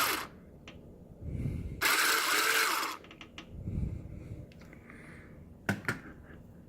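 Power drill running for about a second, drilling off a mount that holds the microwave's keypad panel. Quieter handling noise and a couple of sharp clicks follow.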